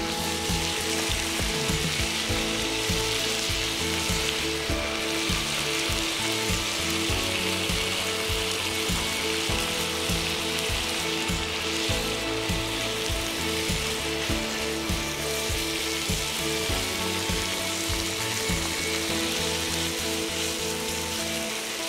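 Stir-fry of pork, bean sprouts and noodles sizzling on a hot griddle pan over a gas burner, with frequent clicks and scrapes as chopsticks and a wooden spatula toss it against the pan.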